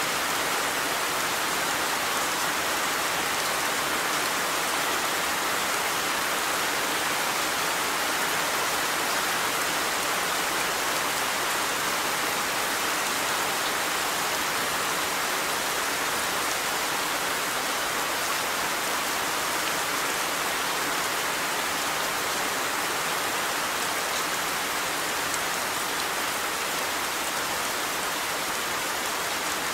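Steady, even rainfall: a continuous shower of rain pattering on surfaces.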